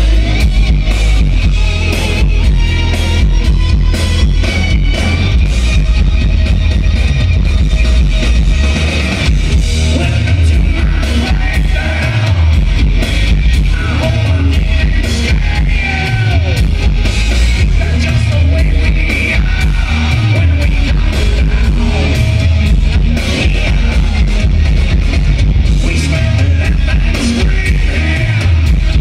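Live rock band playing loudly, with electric guitars, heavy bass, drums and a male lead vocal, heard from within the crowd.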